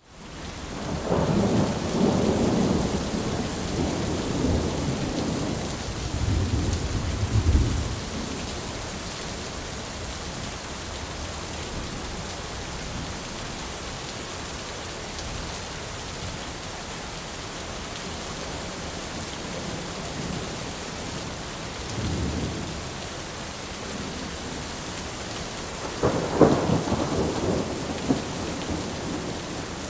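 Thunderstorm: steady rain throughout with rolling thunder. A long rumble fills the first eight seconds, a short low rumble comes about three-quarters of the way through, and a sharper thunderclap a few seconds before the end rolls off.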